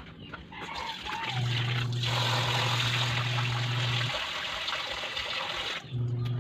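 Water pouring in a steady rush for about four seconds, starting abruptly about two seconds in and cutting off suddenly near the end.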